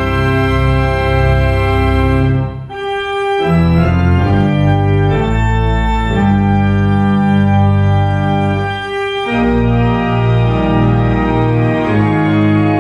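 Church organ playing sustained full chords over deep pedal bass notes, driven by its built-in playback system rather than by a player. The chords change several times, with a brief break about two and a half seconds in.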